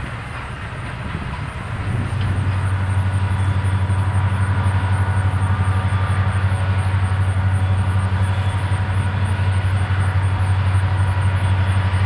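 Distant freight train: the rushing rail noise of a passing intermodal stack train, then, from about two seconds in, a steady low diesel drone from approaching CSX freight locomotives.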